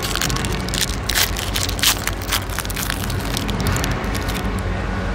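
Crackling and clicking of trading cards and their plastic packaging being handled, many short sharp crackles over a steady low hum.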